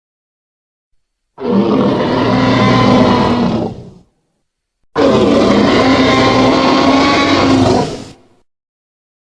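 Tyrannosaurus rex roar sound effect: two long, deep roars, the first about two and a half seconds and the second about three and a half, with a short silence between them.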